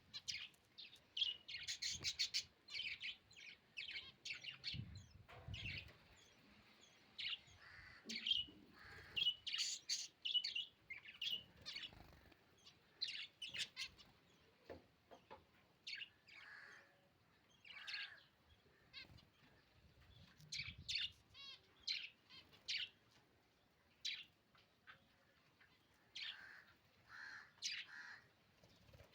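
Lovebirds chirping: a string of short, sharp, high-pitched calls in irregular bursts with brief pauses between them. A couple of soft low thumps come about five seconds in and again about twenty seconds in.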